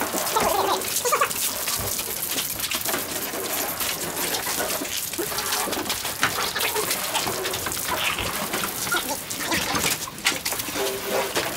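Water from a garden hose spraying and splashing onto a car's bodywork, with hands scrubbing and wiping the wet panels. It makes a steady hiss broken by scattered splashes and slaps.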